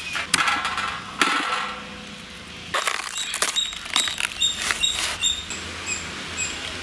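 Fresh banana stem being cut with a knife and its fibrous outer sheaths torn off: a crunching tear near the start, then a run of sharp snaps and cracks from about three seconds in, lasting about two seconds.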